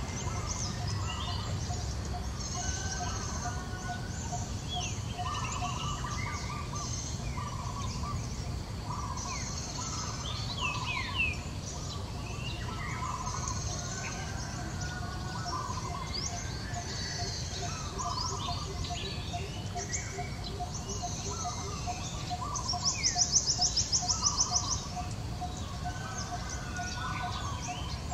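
Wild birds chirping and calling, many short whistled and gliding notes overlapping, with a loud rapid high trill for about two seconds near the end.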